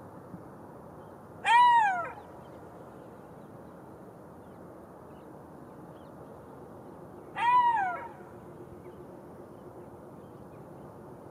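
Golden jackal giving two short calls about six seconds apart, each rising then falling in pitch, over a steady background hiss.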